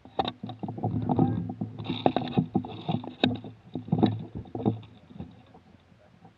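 Irregular knocks, bumps and rustling from an airsoft rifle and the camera mounted on its rail as the gun is carried and handled, over a low rumble. The sounds thin out near the end.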